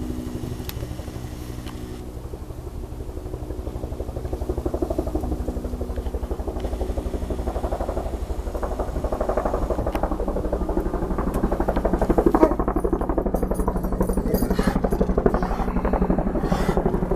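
Firefighting helicopter flying low overhead with a water bucket slung beneath it on a long line. The rapid, even thudding of its rotor blades grows steadily louder as it approaches.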